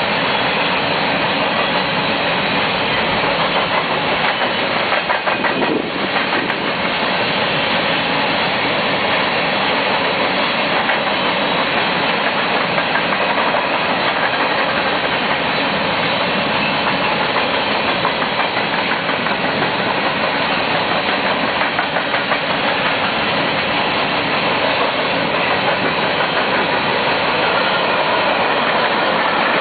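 BNSF grain train's covered hopper cars rolling past: a loud, steady rumble and rattle of steel wheels on the rails.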